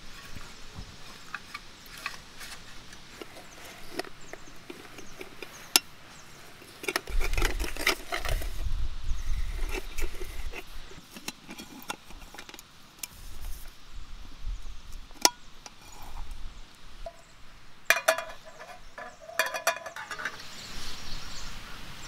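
Scattered clicks and metallic clinks of camping gear being handled: a portable butane stove with its gas cartridge, and a camping cookware pot and lid. A quick run of clicks near the end, and a few seconds of low rumble in the middle.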